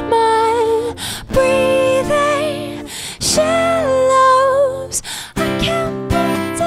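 A woman singing long held notes to her own strummed acoustic guitar; the voice stops about five seconds in and the guitar strums on alone.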